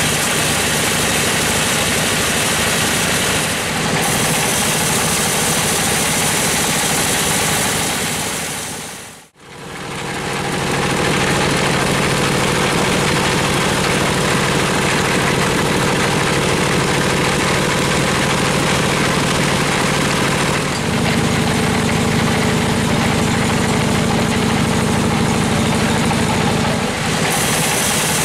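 Band sawmill running on a stationary engine, its blade cutting lengthwise through a gmelina log. The engine hum is steady throughout, with the hiss of the cut rising over it at times. The sound drops out briefly about nine seconds in.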